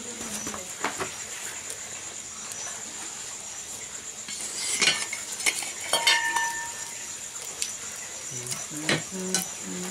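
Metal pot lid and spoon clanking and scraping against a cooking pot as the rice inside is stirred: scattered sharp knocks, a cluster of them near the middle with one brief ringing note.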